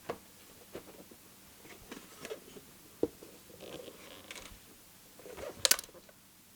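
Small clicks, taps and scrapes of hands and a tool handling the opened casing of a synthesizer, with a short, sharper clattering rattle near the end, while a tiny loose screw is worked out from inside.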